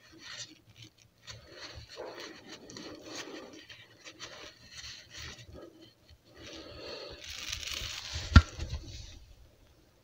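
Rustling and scraping of gloved hands and clothing moving under a car, in uneven patches, with one sharp knock about eight seconds in.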